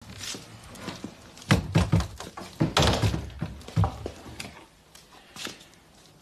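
A series of heavy thuds and knocks, several close together about one and a half to four seconds in, one of them trailing into a short rushing noise, then a couple of fainter knocks near the end.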